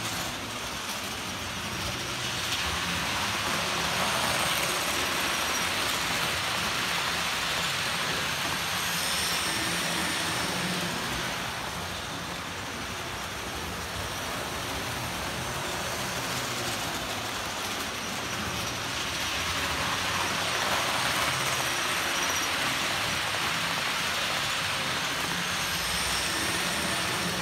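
Model trains running past on the layout track: a Bachmann Class 92 with container wagons and a Jouef Eurostar set. Their wheels and motors make a steady rattling whir that swells twice, once from a couple of seconds in and again past the middle, as each train comes close.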